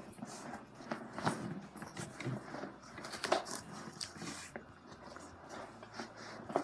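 Scattered rustles and light clicks of a large fabric backpack being handled and its pocket pushed about.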